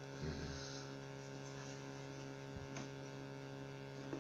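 Steady electrical mains hum, several even tones held level, with a brief low thump about half a second in.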